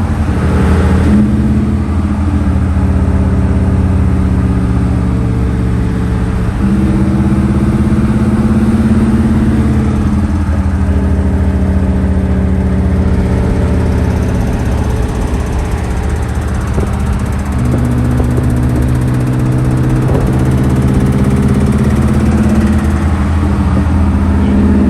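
A car engine running steadily. Its pitch steps up and down a few times.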